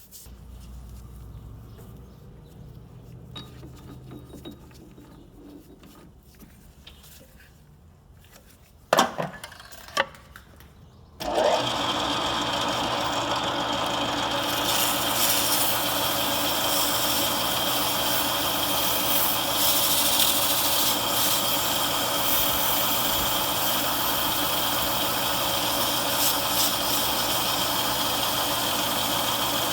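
Two sharp knocks, then about eleven seconds in a power tool motor starts and runs steadily, used to clean up injector tube reamers.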